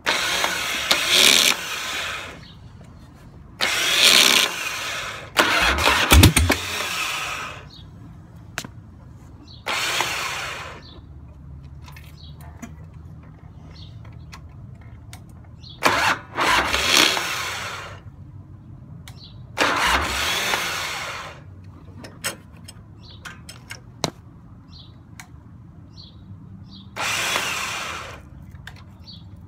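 2003 Harley-Davidson Dyna FXDX's Twin Cam 88 V-twin being cranked on its electric starter in about seven short tries of one to two seconds each, with pauses between, not catching: the hard starting the owner is trying to sort out.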